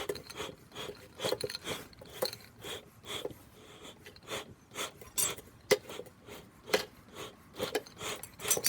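Dry stringy bark rustling and scraping as it is fed and packed down into a bee smoker, in short irregular bursts with a few sharper knocks, the loudest a little over halfway through.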